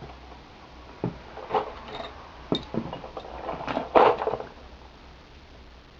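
A few light clicks and knocks of hands handling things, spaced about a second apart. The loudest comes about four seconds in with a brief rustle.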